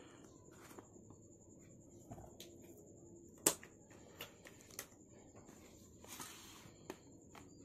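Faint scattered clicks and taps of an LED circuit board being handled and lifted on a tabletop, the sharpest about three and a half seconds in.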